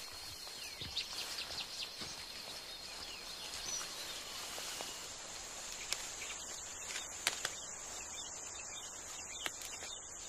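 Forest ambience: a steady high insect drone with short bird chirps in the first half and a few faint clicks later; about five seconds in the drone shifts to a higher pitch.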